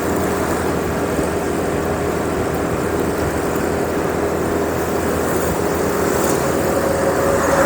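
Motorbike engine running at a steady cruise while riding along a road, with wind and road noise on the microphone; a steady drone throughout.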